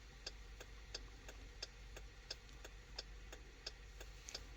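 2014 Dodge Durango's hazard-light flasher ticking steadily, about three clicks a second, faint over a low hum.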